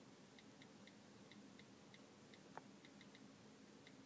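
Faint clicks of an iPad's on-screen keyboard as text is typed, a few a second at an uneven pace, with one slightly louder tap a little past halfway.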